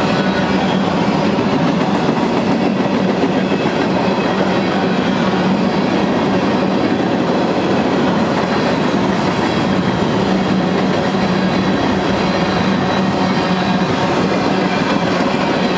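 Freight cars of a long manifest freight train rolling past close by: the steady, loud noise of steel wheels running on the rails.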